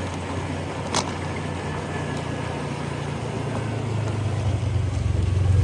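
A 125 cc Honda scooter running as it is ridden: a steady low engine hum under a rushing noise, growing louder in the second half. A single sharp click about a second in.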